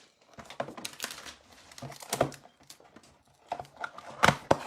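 Trading cards being handled and flipped one against another: irregular light clicks and snaps of card stock, with a louder pair of snaps near the end.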